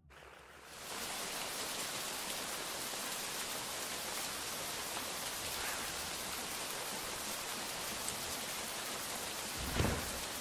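Steady rain ambience fading in over the first second, a dense, even hiss, with a brief low rumble near the end.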